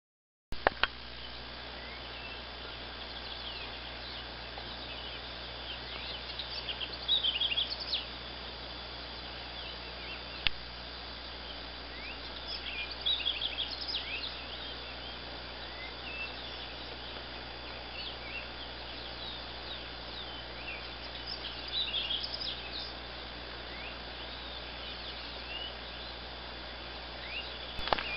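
Small birds chirping and twittering in short bursts every several seconds over a steady background hiss and low hum. There is a single sharp click partway through.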